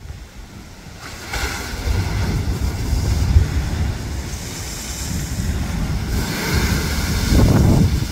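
Ocean waves surging and breaking against a rocky shore, swelling about two seconds in and again near the end, with wind buffeting the microphone.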